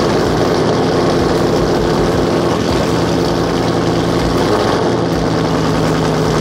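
Car engine idling steadily, heard from inside the cabin, with a low, even hum.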